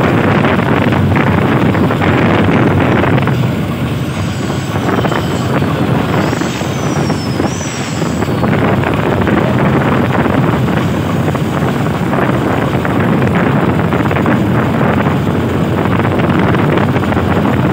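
Engine of a Vietnamese farm vehicle (công nông) running steadily while it drives along the road, mixed with road noise. It eases off briefly about four to eight seconds in.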